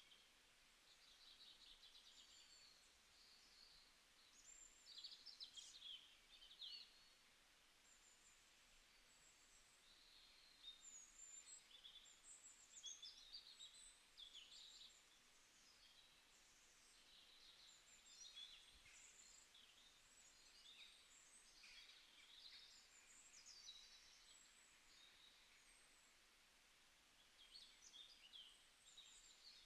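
Faint birdsong: many short chirps, trills and quick up-and-down whistles from several birds, over a soft background hiss.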